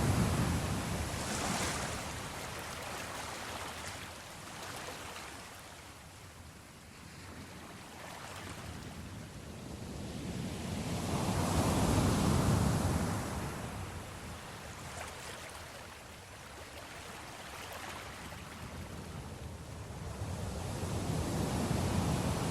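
Ocean waves breaking and washing up a shore, the surf swelling and fading in slow surges about ten seconds apart.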